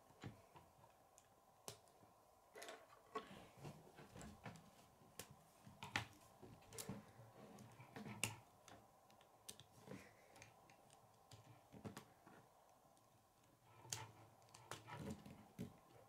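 Quiet, irregular clicks and light rattles of plastic K'nex rods and connectors being handled and snapped together.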